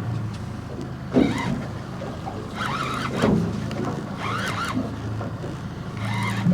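Fishing boat's engine running steadily at low speed, with a few short higher-pitched sounds over it and two louder sudden sounds about one and three seconds in.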